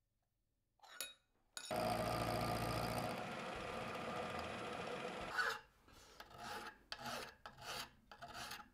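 A milling machine runs steadily for about four seconds while a countersink cutter chamfers a hole in a steel bar. Then a hand file scrapes across steel held in a vise, about four strokes.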